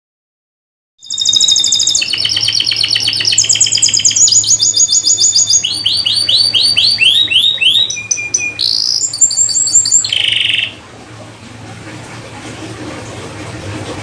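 Domestic canary singing a fast song of rolling trills, each phrase a quick run of repeated notes at a new pitch. It starts about a second in and cuts off abruptly about ten and a half seconds in, leaving a faint hum and hiss.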